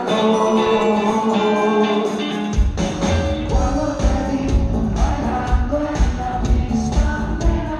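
Live band music. About two and a half seconds in, the bass and drums come in with a steady beat.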